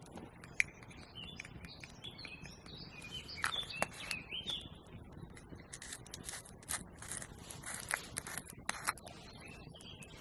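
Small birds chirping in short calls for the first few seconds, then a run of sharp clicking scrapes.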